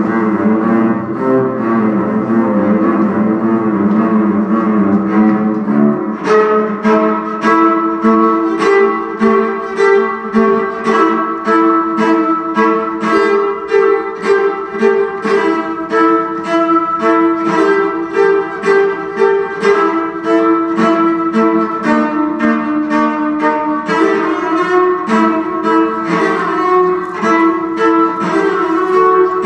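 Solo cello played live: long, held bowed notes at first, then, about six seconds in, a steady run of short, quickly repeated notes that shift between a few pitches.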